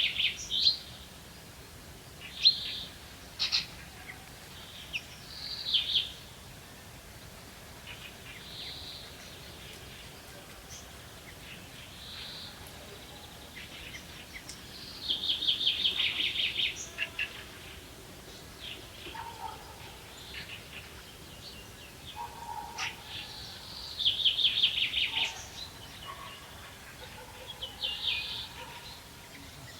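Songbirds singing: a rapid, trilled phrase about two seconds long repeats three times, with short chirps and calls scattered between.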